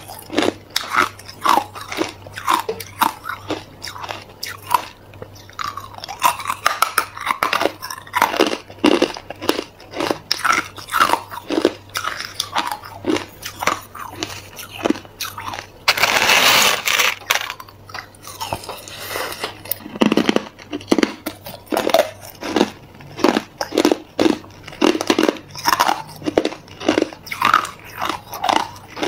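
Crushed ice being bitten and chewed close to the microphone: rapid, uneven crunching, with one longer, louder crunch about sixteen seconds in.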